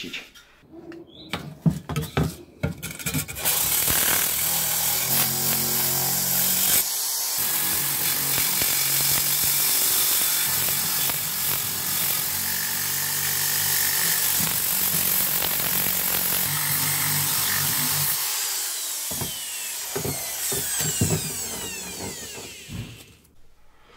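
Electric drill driving a wire brush against the rusty metal housing of an old vacuum cleaner, scrubbing off the rust: a loud, steady rasping hiss over the drill motor's hum, starting a few seconds in and stopping about three quarters of the way through, with a few knocks of handling before and after.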